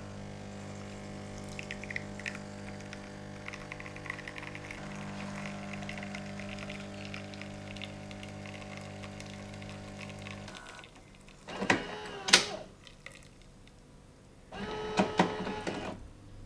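Siemens EQ.6 Plus s500 espresso machine brewing a shot: the pump hums steadily with a crackle of coffee running into the cup, then stops about ten seconds in. The owner finds that this shot brews too fast. Two short bursts of mechanical clatter and whirring from inside the machine follow.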